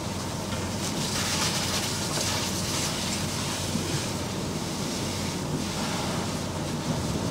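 Steady rushing hiss of water spray and steam on a burning boat fire, stronger from about a second in, over the low, even hum of an engine running.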